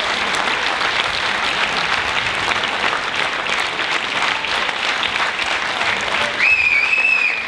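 Audience applauding steadily, with a single shrill held note about a second long near the end.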